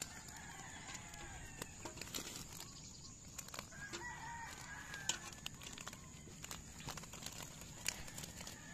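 Faint chickens clucking and crowing in the background, a few short calls, over scattered sharp clicks and taps.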